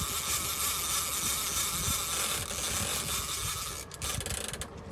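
Fishing reel ratcheting as a hooked mahi mahi is fought from a trolling boat, over a steady hiss and low rumble of water and boat.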